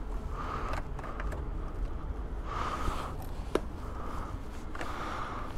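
A few small clicks and rustles of keys being handled at a scooter's ignition, over a low steady rumble.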